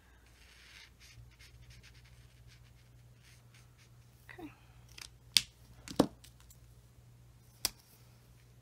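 Faint scratch of a Stampin' Blends alcohol marker tip on cardstock, then a few sharp plastic clicks in the second half, two close together and one more a little over a second later, as marker caps are pulled off and snapped back on while markers are swapped.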